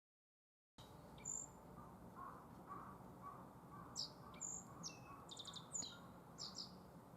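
Black-faced bunting singing: a faint, quick phrase of high chirps and short buzzy trills, cutting in abruptly just under a second in after silence. A lower note from another bird repeats about twice a second during the first few seconds.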